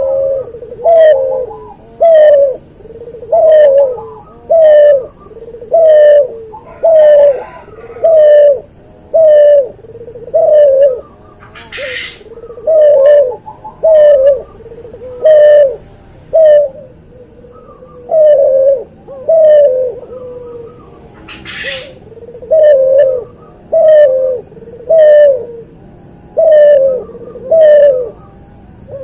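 Cuhu dove, a cross between a white albino puter (Barbary dove) and a puter pelung, cooing over and over in a steady rhythm, about one short falling coo every three quarters of a second. Two brief hissing noises cut in, about twelve seconds in and near twenty-two seconds.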